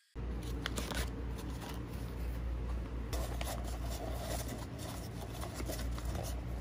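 Close handling sounds: scraping and rustling with many small clicks over a steady low hum.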